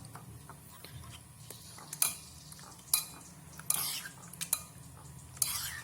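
Squid pieces being mixed with egg and seasoned flour in a bowl: soft stirring broken by sharp clinks against the bowl about two and three seconds in, with longer scrapes around four seconds in and near the end.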